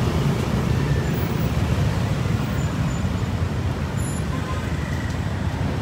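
Street traffic: a steady rumble of passing motorbikes and other vehicles.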